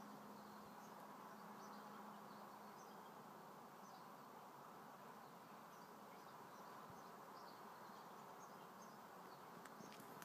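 Near silence: faint outdoor background hiss with scattered faint high chirps, and a faint low hum that fades out about two and a half seconds in. The husky is not howling.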